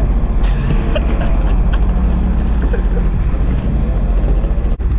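Jet ski engine running steadily under way, with rushing water and wind noise over it. There is a brief break near the end.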